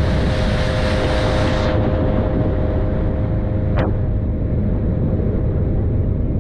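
Boat motor running steadily under way, a low rumble with a steady whine. A rushing hiss over it stops about two seconds in, and there is a single sharp click near the middle.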